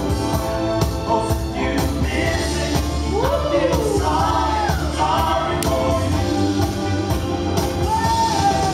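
Recorded dance music with a steady, even beat and a singing voice, played loud for a locking battle.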